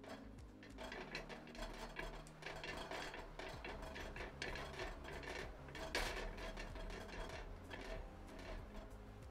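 A silicone pastry brush spreading cooking oil across a flat metal tawa: rubbing and scraping with many small ticks, and one louder scrape about six seconds in.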